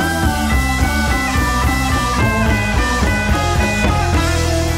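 Rock music with guitar playing back from tape on a 1976 Akai X-201D reel-to-reel deck. Its bass settles into long held notes about four seconds in.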